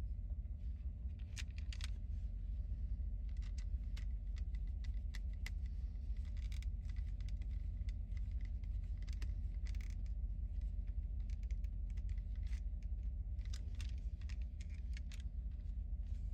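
Scattered light clicks and rattles of small plastic toy parts being handled and fitted together, over a steady low hum.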